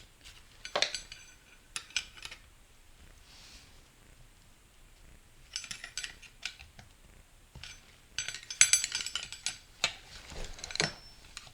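Steel transmission parts and a hand tool clinking and scraping against each other: a few light taps at first, a quiet stretch, then a busier run of clinks in the last few seconds.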